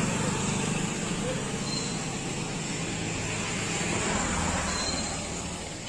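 Steady mechanical hum with a constant hiss of background street noise, slowly easing off toward the end.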